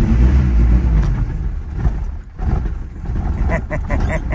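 Honda Civic EK's four-cylinder engine running shortly after a rough cold start, warming up so it will keep running. The level dips briefly a little over two seconds in.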